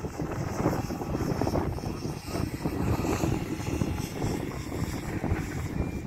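Wind buffeting the phone's microphone outdoors: a rough, low rumbling noise that rises and falls unevenly in gusts.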